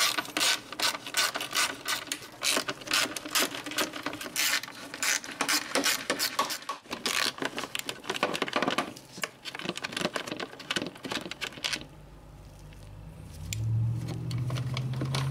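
Quarter-inch ratchet with a 10 mm socket clicking rapidly in runs as bolts are loosened. Near the end a low steady hum takes over.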